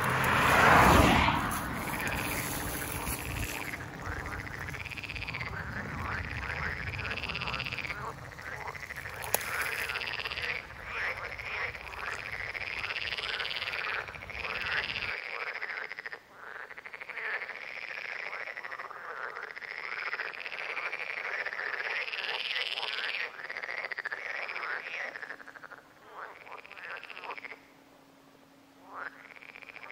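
A chorus of frogs calling, with many overlapping rising-and-falling croaks repeating without pause. A car passes loudly about a second in, and road traffic rumbles under the calls until it cuts off suddenly about halfway.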